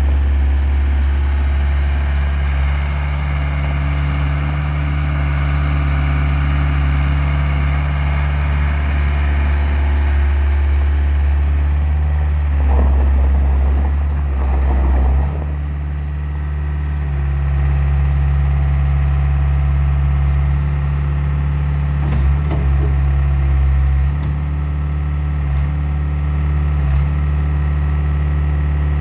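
2002 Case 75XT skid steer loader's diesel engine running steadily. About halfway through, the engine note shifts for a few seconds, with two short spells of added mechanical noise, before settling back to a steady run.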